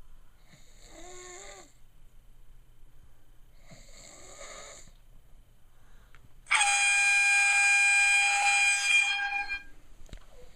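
A woman snoring softly, twice. Then an air horn app played through a phone speaker blasts one steady, loud horn tone for about three seconds, starting suddenly and cutting off.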